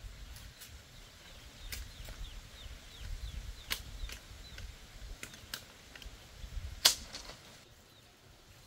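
A knife chopping at a bamboo pole: a string of sharp, irregularly spaced knocks, the loudest about seven seconds in. Ducklings peep faintly in short falling cheeps between the strikes.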